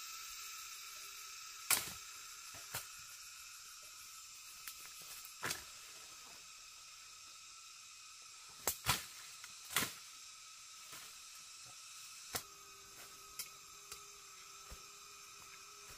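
Scattered short, sharp clicks and knocks, about ten of them at irregular intervals, the loudest a cluster a little past halfway, over a faint steady high hiss.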